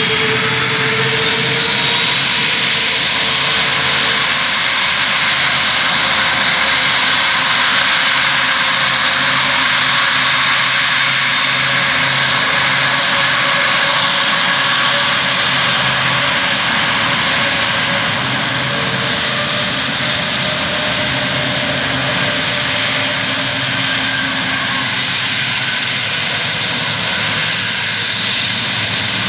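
Airbus A330 airliner's jet engines running steadily as it taxis close by: a loud, even rush of jet noise with faint high whining tones over it.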